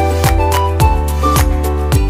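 Background music with a steady beat under a light melody.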